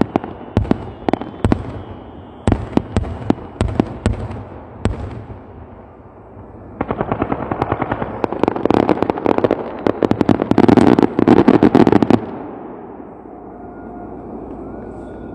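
Aerial fireworks bursting: sharp separate bangs for the first five seconds, then a dense, rapid crackling barrage from about seven seconds in, the loudest part, which stops suddenly about twelve seconds in and leaves a fading rumble.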